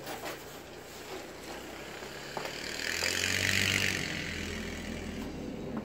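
A vehicle passing: a low engine hum and a hiss swell to a peak about three seconds in, then fade.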